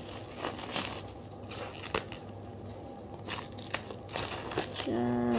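Clear plastic wrapping crinkling and crackling in irregular bursts as hands pull and peel it off a small potted plant.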